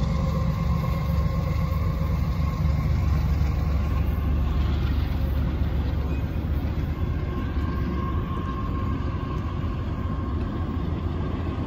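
Train running by with a steady heavy low rumble and faint steady whines above it.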